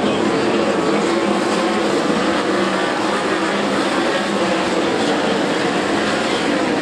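A pack of winged sprint cars racing around a dirt oval, their V8 engines at high revs in a steady, loud, continuous engine noise.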